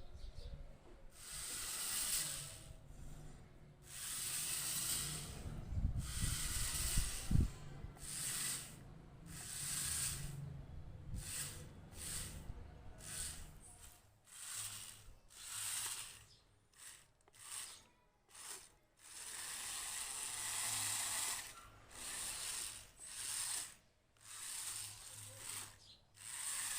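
Small brushed electric motors and gearbox of a homemade RC car whirring in many short bursts, starting and stopping every second or so.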